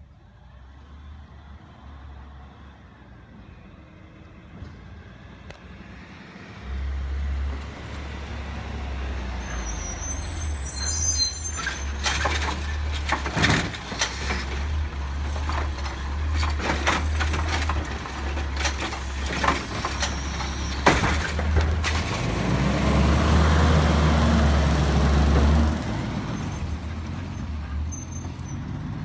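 Automated side-loader garbage truck working a curbside pickup. It pulls up on its engine with a hiss of air brakes, then its hydraulic arm lifts and shakes a cart into the hopper with a run of clanks and bangs. The engine then revs up loudly and the truck pulls away.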